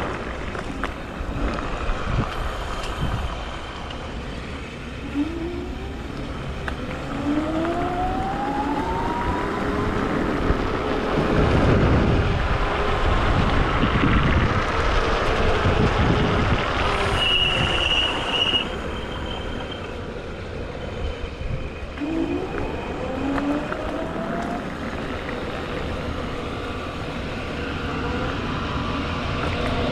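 Wolf Warrior electric scooter's dual motors whining as it rides, the whine rising in pitch twice as the scooter speeds up, over a steady rush of wind on a chest-mounted microphone. A short high beep sounds about halfway through.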